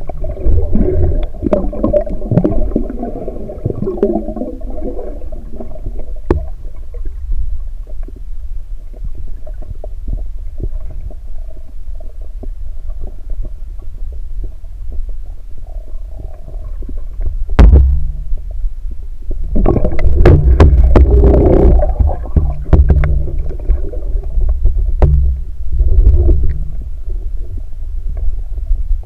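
Muffled underwater noise from a submerged camera: a steady low rumble, with louder bursts of water movement at the start and again about two-thirds through, and a sharp knock shortly before the second burst.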